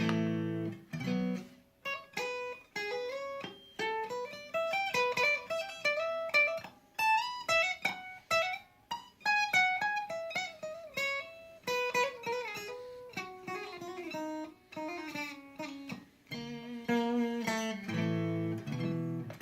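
Squier Stratocaster electric guitar on the third position of its five-way pickup switch, the middle pickup alone: a chord rings out, then a run of single picked notes climbs and falls, and a few more chords come near the end.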